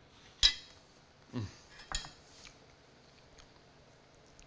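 Metal spoon clinking and scraping against a cast-iron skillet while scooping out hash: one sharp clink about half a second in, then a few softer knocks and scrapes.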